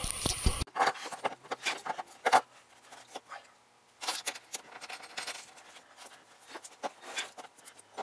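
A small wrench and steel bolts or nuts clinking irregularly as the transfer-case shift-cable bracket is fastened under the vehicle, with light scraping between the clicks.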